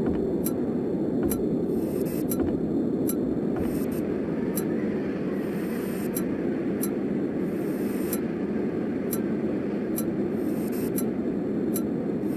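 Steady low rumbling ambience drone with a faint, sharp tick repeating about every three-quarters of a second.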